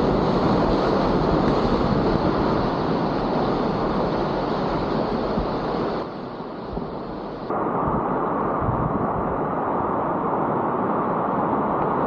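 Rushing whitewater of a river at high water, a steady loud noise with wind buffeting the microphone. Just after the middle it turns muffled and quieter for about a second and a half, then comes back.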